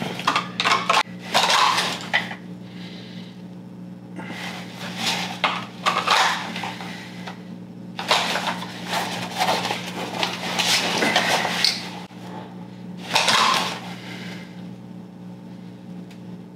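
Clatter and rattle of a pistol being drawn from an outside-the-waistband holster and handled against tactical gear during dry-fire draws, coming in several bursts. A steady low hum runs underneath.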